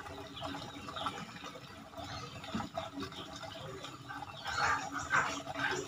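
Water trickling and splashing into a pond, uneven throughout, with louder splashes in the last second and a half.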